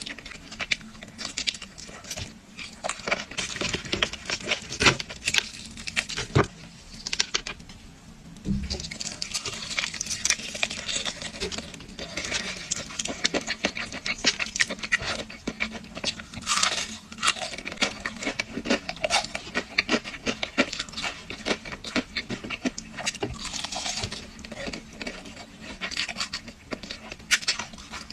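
Crispy fried chicken being bitten and chewed close to the microphone: a dense, continuous crackling crunch of the fried coating, with wet mouth sounds between bites.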